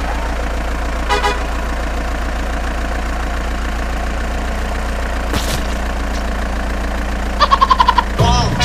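Truck engine idling as a steady low drone, with a short horn blast about a second in and a quick run of about seven horn toots near the end.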